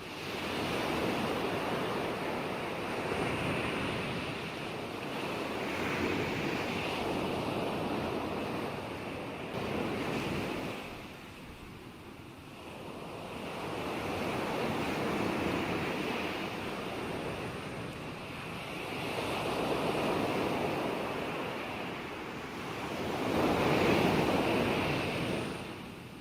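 Ocean surf: waves breaking and washing in, a steady rushing that swells and eases in slow surges every few seconds. There is a lull a little before halfway, and the biggest surge comes near the end.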